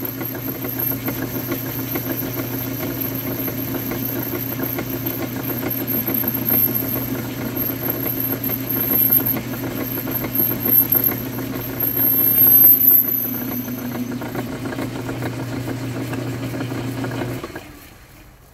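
Metal lathe running and turning a metal part with the tool cutting, stringy chips coming off: a steady mechanical hum, louder in patches. The lathe is switched off about a second before the end and the hum drops away.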